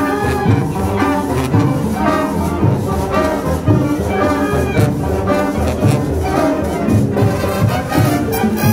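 Marching band playing live: brass and saxophones over a steady percussion beat.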